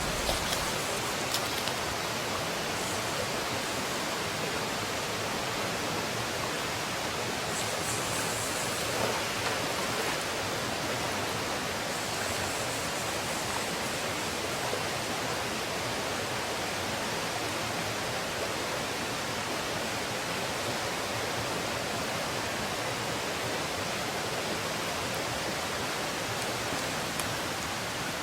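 Steady rushing of river water flowing, an even hiss without breaks, with a few light clicks in the first second or so.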